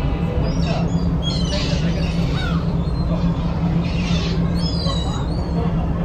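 Black-tailed gulls calling in short cries, several at a time in two clusters, over the steady low hum of the ferry's engines.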